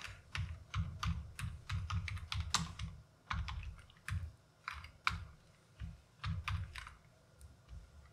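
Typing on a computer keyboard: irregular runs of quick keystrokes separated by brief pauses.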